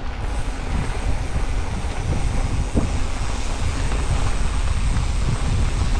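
Santa Cruz Bronson C mountain bike descending a dirt trail: wind on the camera microphone and a steady rumble of tyres over the ground, with frequent small rattles from the bike.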